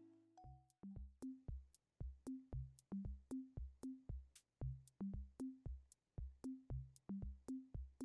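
Background music: a sparse electronic beat of short drum-machine hits with low bass notes, about three to four a second, after a held chord fades out at the start.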